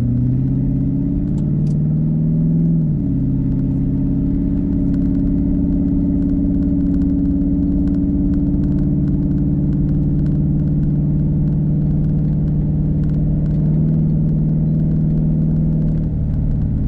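Ford 4.6-litre V8 of a 2001 Mustang GT with its cat-back exhaust deleted (no mufflers or resonator), heard from inside the cabin. It climbs in pitch as the car accelerates, dips briefly about three seconds in, then holds a steady pitch at cruising speed.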